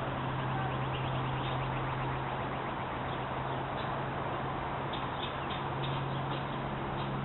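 Baby birds cheeping in short, high peeps that come more often near the end, over a steady low hum and hiss.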